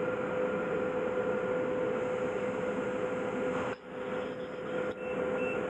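Steady industrial machinery hum: an even noise with a constant mid-pitched tone, dipping briefly just before the last two seconds.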